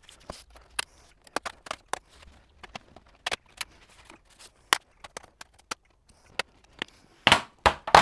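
Snap-fit clips of a laptop's bottom cover popping loose one after another as it is worked off by hand, giving many sharp, irregular clicks, with two louder, longer handling noises near the end as the cover comes away.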